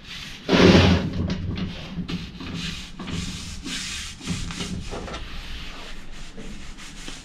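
Gloved hands rubbing and sliding over two clamped steel plates, and the plates scraping as they are shifted on the bench, in a string of short rubbing strokes with the loudest scrape about half a second in. The edges of the two laser-cut buffer-beam plates are being felt for alignment before welding.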